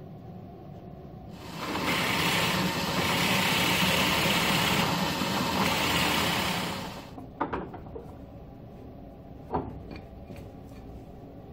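Drill press running with its bit boring into a wooden block; the steady machine noise rises about a second and a half in, holds for about five seconds, then dies away. Two short sharp knocks follow.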